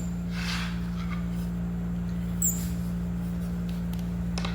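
A steady low hum with one constant low tone, over faint handling sounds of particleboard cabinet panels being fitted onto cam bolts, with a light click near the end.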